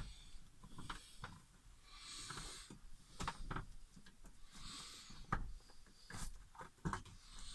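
Handling noise from fitting insulation pieces around an RV refrigerator: scattered light clicks and knocks, with two short hissing rustles about two and four and a half seconds in.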